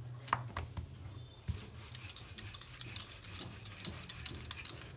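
Wooden rolling pin clicking and tapping against a hard countertop as a stuffed paratha is rolled out in dry flour: quick, irregular clicks, sparse at first and coming thick and fast from about a second and a half in.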